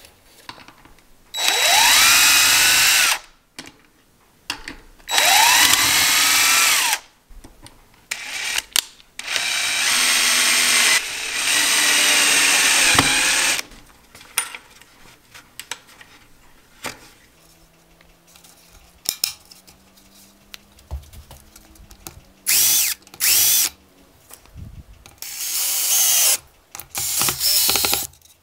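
Cordless drill running in bursts, spinning up and winding down each time, while screws are driven to mount a metal draw latch on a wooden door frame. There are three long runs in the first half and shorter ones near the end, with light handling of the hardware in between.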